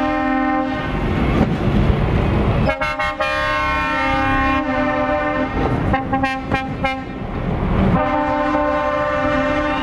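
Lorry air horns sounding as heavy tractor units drive past, over the low rumble of their diesel engines: a blast at the start, a long blast about three seconds in, a few short toots around six to seven seconds, and another long blast near the end.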